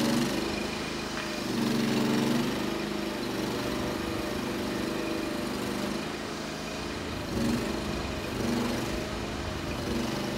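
An engine running steadily with a low hum that swells in level several times.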